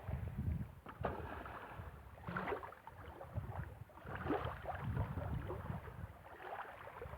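Water sloshing and splashing close to the microphone, with low wind buffeting it.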